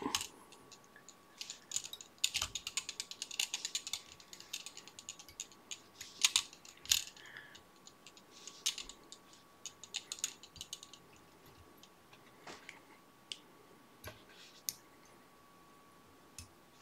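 Light clicks and ticks of hands working a bobbin holder and tying thread at the fly-tying vise while oval tinsel is tied in on the hook. A dense run of rapid clicks comes about two to four seconds in, followed by scattered single ticks.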